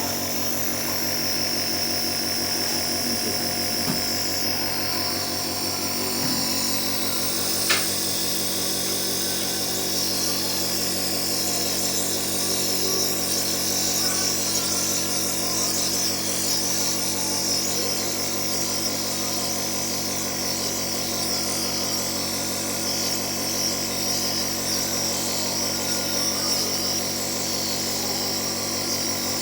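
Electric compressor nebulizer running steadily: a motor hum with a high hiss as it turns the medicine solution into mist.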